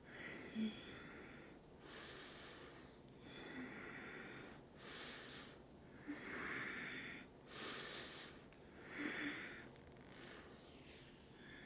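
A woman's slow, faint breathing, in and out, each breath lasting about a second with short pauses between.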